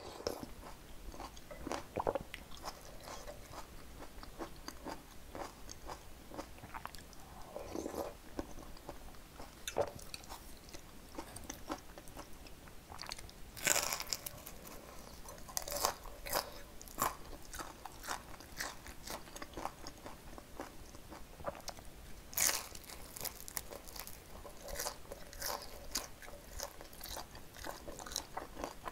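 Close-up eating sounds: steady chewing with small wet clicks, broken by several louder crisp crunches as a pan-fried green onion pancake (buchimgae) is bitten, the loudest about halfway through and again about three quarters of the way in.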